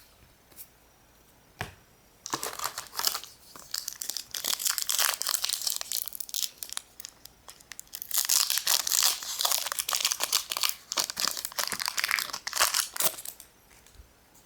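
Foil trading-card booster pack being torn open, its wrapper crinkling and tearing in two spells with a short lull in between.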